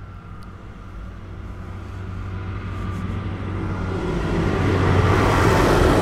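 A heavy vehicle's engine and tyres on a wet road, a low steady hum with a rising hiss that grows steadily louder as it approaches and passes close by, loudest near the end.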